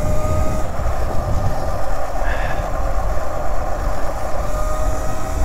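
Burromax electric minibike riding over brick pavers: a steady low rumble of wind on the microphone and tyres clattering over the bricks, with a thin motor whine at the start and again near the end.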